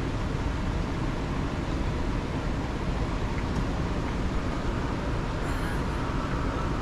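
Steady rumble and hiss heard inside a vehicle's cab, with no distinct events: the vehicle's idling engine and cabin noise during heavy rain.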